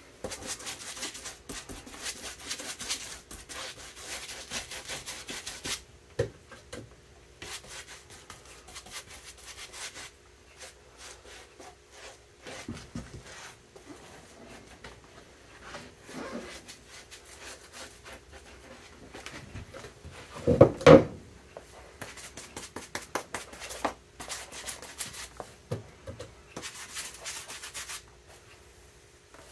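Glue brush scrubbing glue onto the leather welt and sanded bottom of a boot, then onto a leather midsole: runs of quick scratchy brush strokes. A single louder knock comes about two-thirds of the way through.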